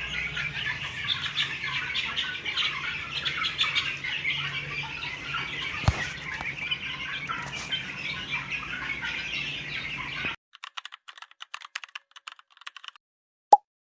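A flock of young desi hens clucking and squawking continuously, with one sharp click about six seconds in. The sound cuts off abruptly about ten seconds in, followed by faint scattered ticks and one short, loud blip near the end.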